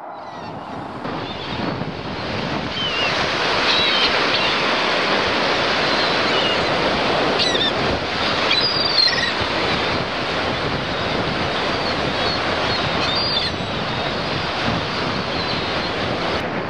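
A loud, steady rushing noise that swells up over the first few seconds, with faint high chirps a few times over it.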